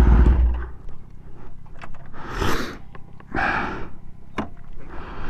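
A motorcycle engine's low idle rumble dies away within the first second. Two short rushes of noise follow, then a few light clicks and scuffs.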